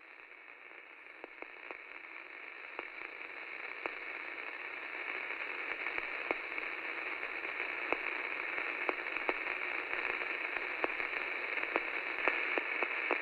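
Hiss with scattered crackles and clicks, thin and narrow-sounding like radio static, swelling steadily louder.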